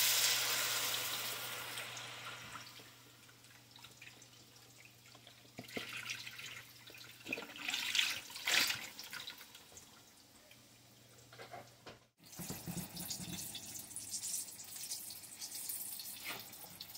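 A hot frying pan of Cajun-seasoned oil sizzles loudly at first, fading over the first couple of seconds. Chicken broth is then poured from a carton into the pan, splashing. In the last few seconds there is irregular scraping and clicking from a silicone whisk stirring the sauce in the pan.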